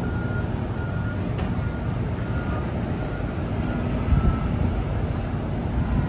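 Steady low rumble of industrial plant machinery and vehicles, with a faint high beep repeating about once a second. A forklift drives across the yard about four seconds in, when the rumble swells briefly.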